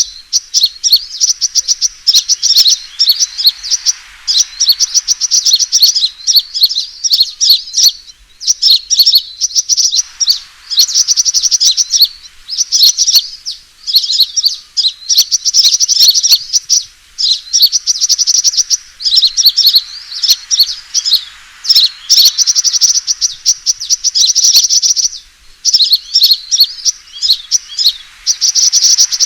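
Sunbird fighting calls: rapid, high, twittering chirps in dense bursts of one to three seconds with short breaks between them, as used in a bird-lure recording.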